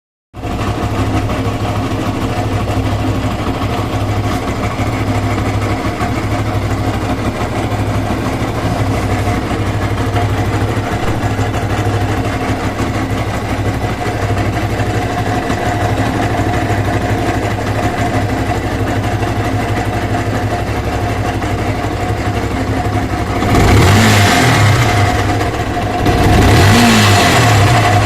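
Yamaha R15 (version 1) 150 cc single-cylinder engine at 62,000 km, idling steadily with a sound the owner calls strange. It is revved briefly twice near the end, each time rising and falling back to idle.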